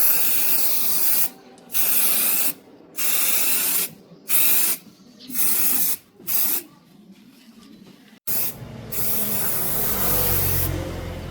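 Spray paint hissing in short bursts, each about a second long with brief pauses between them. From about eight seconds in, a steadier hiss with a low hum underneath takes over.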